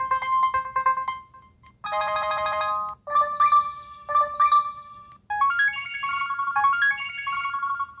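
LG Rumor cell phone's built-in single alert tones previewed one after another through its speaker: a fast repeating beep pattern that stops about a second in, a short steady buzzy chord, a few ringing chime notes, then a quick run of beeps stepping up and down in pitch.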